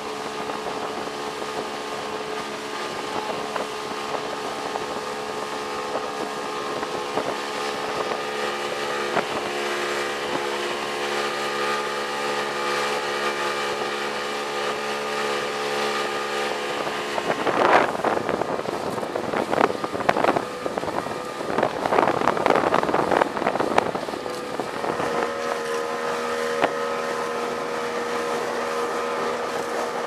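30 hp Yamaha outboard running steadily at speed, driving an alloy long boat through short chop. For several seconds past the middle, loud rushing bursts of wind and spray swamp the motor, then it comes back at a slightly different pitch.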